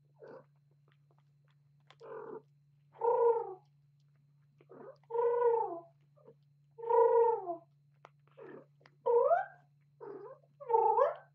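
A cat meowing about ten times in short calls, the louder ones coming every second and a half or so. Some calls fall in pitch, and the last two rise.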